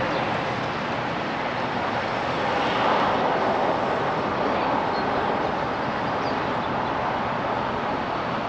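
Steady road noise of a moving vehicle, an even rushing roar with no change in pace.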